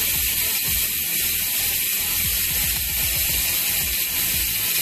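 Freehub of a road bike's rear wheel freewheeling after a hand spin, its pawls clicking so fast they blur into a steady, loud buzz.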